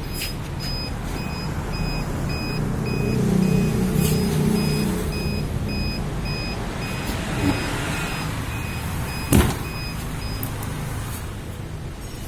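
An electronic beeper sounding a short high beep about twice a second, stopping about ten seconds in, over a low steady rumble. A sharp knock comes near the end.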